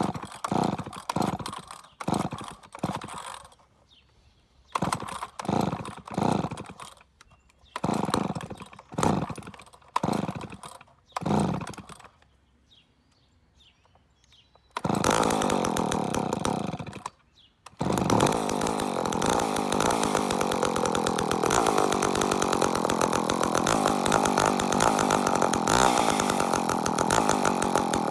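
Cold start of a McCulloch Pro Mac 10-10 two-stroke chainsaw: about fifteen pull-cord strokes in four groups without it firing, then a short pause. About halfway through the engine catches, runs briefly, dies for a moment, then restarts and runs steadily.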